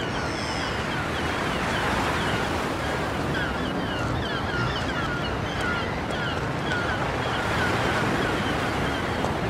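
Steady surf-like rushing noise, with many short high chirps repeating throughout.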